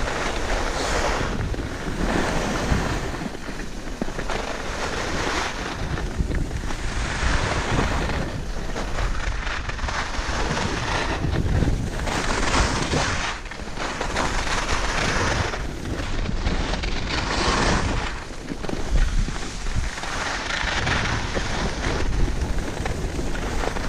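Wind rushing over a GoPro's microphone during a ski descent, mixed with skis hissing and scraping over packed snow. The noise swells and eases every second or two.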